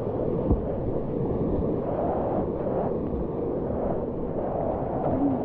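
Whitewater rapids rushing and churning around a kayak, as a steady loud wash of water noise, with a short thud about half a second in.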